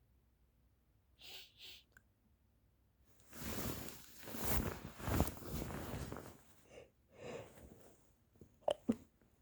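Person with a stuffy head cold sniffing twice, then a few seconds of loud, gusty breathing and sneezing about halfway through. Two short clicks come near the end.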